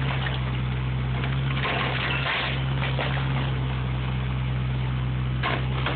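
Bobcat E32 mini excavator's diesel engine running steadily under load while its bucket tears at a timber-and-steel pavilion roof, with two louder bursts of cracking and crunching debris, about two seconds in and near the end.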